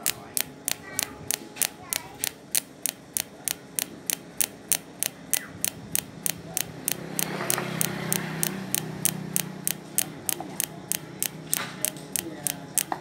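Welding machine running in pulse mode, snapping out evenly spaced sharp clicks at about four a second as it welds. A low hum swells for a couple of seconds in the middle.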